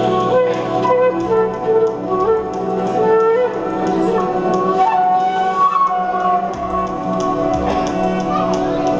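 Flute playing a melody of short notes with a few slides in pitch, over a steady sustained drone.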